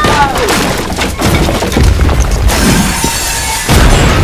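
Dubbed crash and shattering-glass sound effects running on for several seconds, with a loud fresh crash near the end.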